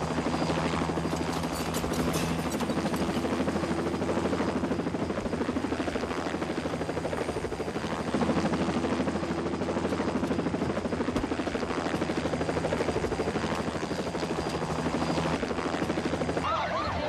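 Helicopter rotor blades chopping in a fast, even beat over a steady engine hum.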